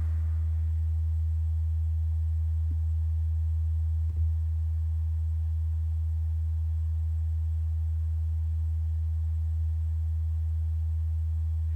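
A steady low electrical hum, with two faint taps about three and four seconds in.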